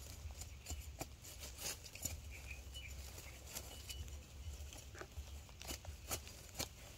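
Faint outdoor ambience: scattered soft clicks and crackles, a few brief high chirps, and a steady low rumble underneath.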